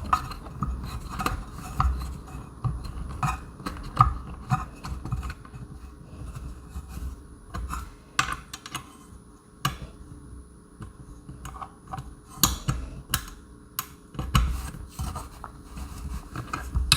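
A screw being turned in by hand with a small screwdriver into a doorbell mount: irregular small clicks and knocks of tool and parts with handling rumble, coming faster and louder a few seconds from the end as the screw is run tight.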